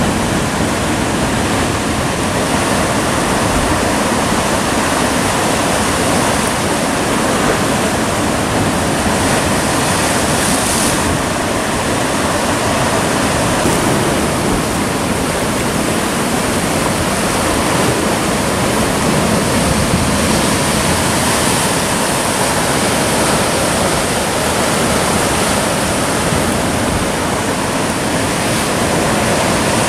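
Sea surf breaking and washing over rocks: a steady, loud rush of water.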